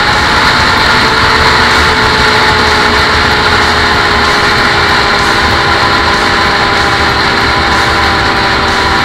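Quad (ATV) engine running at a steady speed under way, a held engine note over a rushing noise, the pitch nearly constant throughout.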